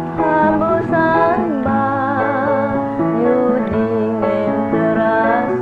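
An older woman singing a slow keroncong song, her held notes wavering, over piano accompaniment.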